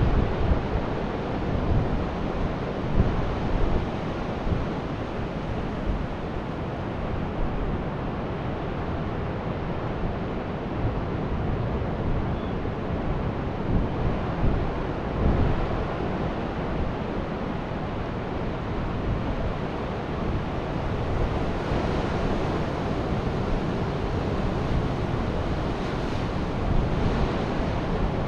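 Ocean surf washing onto a beach, a steady rushing noise, with wind buffeting the microphone in gusts.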